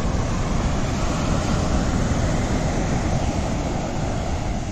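Sea surf washing on the beach, a steady rushing noise, mixed with wind buffeting the microphone.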